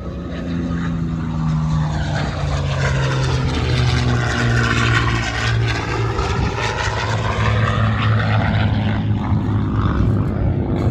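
Packard-built Rolls-Royce Merlin V12 of a P-51C Mustang, its propeller-driven engine drone growing louder over the first few seconds as the fighter makes a pass, then holding strong.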